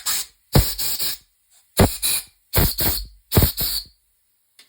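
Compressed-air blowgun fired in short hissing blasts, mostly in pairs, blowing out oil ports to clear out contaminants and machining debris. The blasts come about eight times, each under half a second long.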